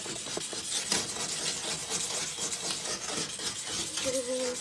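Pumice scouring stick scraped back and forth over a glass-ceramic electric cooktop, a gritty rasping rub in repeated short strokes, grinding off burnt-on carbon build-up.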